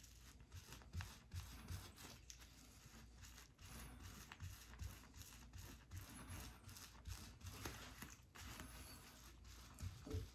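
Faint rubbing and scraping of a cloth wiping sticky adhesive residue off the base of a skin hair system, in short irregular strokes.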